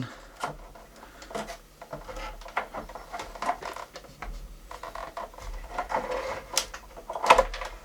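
Hard plastic parts of an espresso machine's housing being handled and worked loose: irregular clicks, knocks and rattles, the loudest about seven seconds in.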